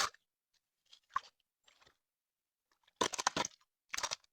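Gravel being scooped into a gold pan, crunching in short bursts: a quick cluster of rapid crunches about three seconds in and another about a second later.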